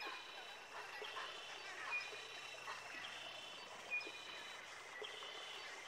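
Birds chirping and calling, with short high whistled notes every second or two over a steady background hiss.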